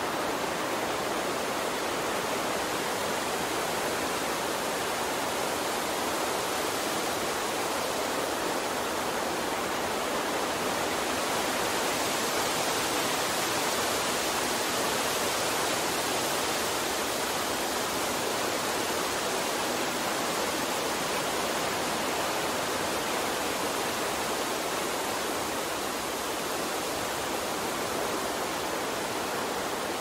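A steady, even rushing hiss with no separate sounds in it, swelling slightly around the middle.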